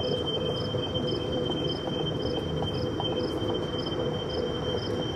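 An insect chirping steadily about twice a second, short high chirps over a thin steady high-pitched tone, above a constant low rumbling background noise.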